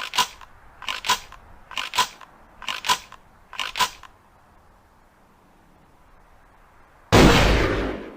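Ithaca Model 37 pump-action shotgun: five quick metallic double clacks about a second apart, typical of the slide being worked back and forward. After a pause of about three seconds comes one loud shot that rings out for about a second.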